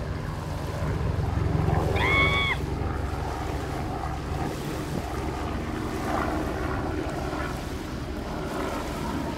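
Wind buffeting the microphone and small waves lapping at the shore, over a steady low hum. A short high-pitched call rises and falls about two seconds in.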